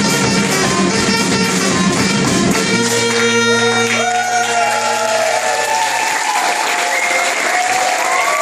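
A small street band with sousaphone and drum plays the closing bars and ends on one long held chord that stops about six seconds in. Audience applause and cheering rise under the final chord and carry on after it.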